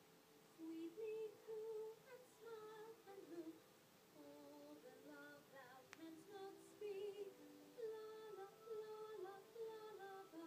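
Quiet music: a slow melody of short held notes stepping up and down, with a single faint click about six seconds in.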